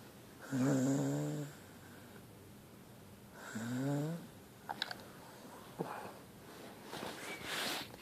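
A dog snoring while awake: two drawn-out snores about three seconds apart, the second rising in pitch, then a few soft clicks and a breathy rasp near the end.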